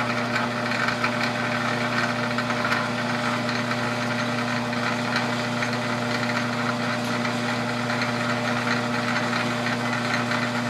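Metal lathe running steadily under power, turning a workpiece set up for single-point square-thread cutting: an even electric-motor hum with a light rattle from the drive and gearing.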